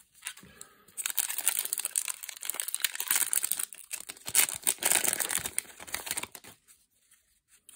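Magic: The Gathering booster pack's foil wrapper crinkling as it is torn open by hand, starting about a second in and stopping shortly before the end.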